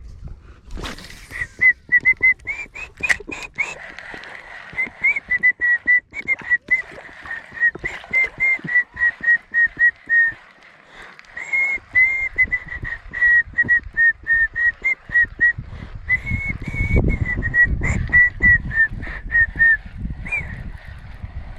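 A person whistling a tune in phrases of short, quick notes with brief pauses between them, over scattered clicks and knocks.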